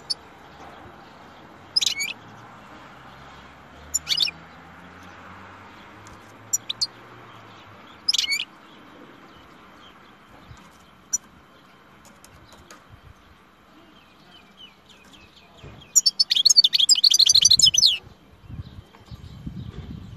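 European goldfinch calling: short, sharp, high call notes every two seconds or so, then about 16 seconds in a two-second burst of fast twittering song. Some low rustling follows near the end.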